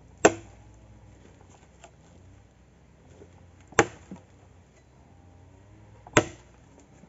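An axe chopping into a log lying on the ground: three sharp chops, the first just after the start, the next a few seconds later and the last near the end.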